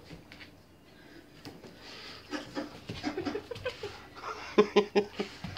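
A dog panting and making short, low vocal noises while play-fighting with a kitten, starting about two seconds in, with a few louder, sharper huffs near the end.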